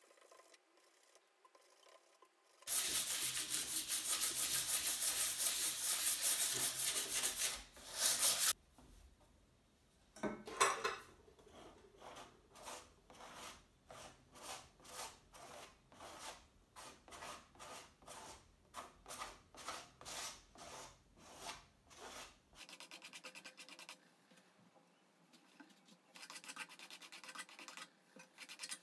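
Sandpaper rubbing fast over a dried chalk-and-glue ground on a stretched canvas for several seconds. Then a palette knife scrapes a dense layer of ground across the canvas in strokes about twice a second. Near the end come quicker, lighter scrubbing strokes.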